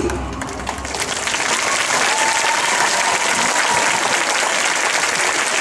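Audience applauding steadily at the close of a stage performance.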